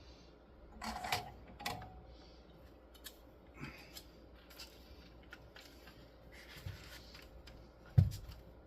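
Small clicks and rustles of tools and parts being handled on a workbench, with one sharp knock near the end.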